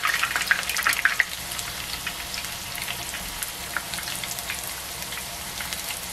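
Batter-coated asparagus spears deep-frying in a shallow pan of oil: a steady sizzle full of small crackling pops, busiest in the first second or so and then settling. The batter is crisping in the hot oil.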